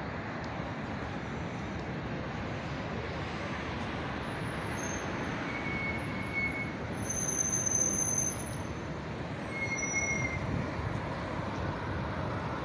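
Street traffic on a wide city avenue: a steady hum of passing cars, with a few brief high-pitched squealing tones over it about five, seven and ten seconds in.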